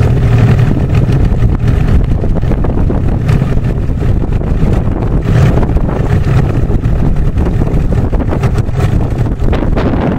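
Wind buffeting the microphone: a loud, steady low rumble that flutters unevenly.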